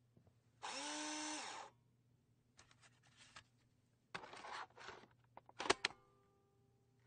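Disk drive: its motor whirs up, spins for about a second and winds down. Scraping and rattling follow, then a few sharp mechanical clicks near the end.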